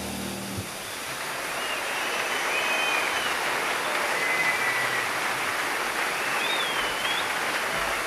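Small garden waterfall pouring over a rock face: a steady rush of falling water. A few short, gliding bird whistles sound over it.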